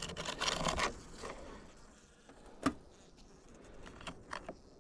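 Hands working an open plastic beehive: a scrape or rustle in the first second, a single sharp click about two-thirds of the way through, and small ticks, with honeybees faintly buzzing.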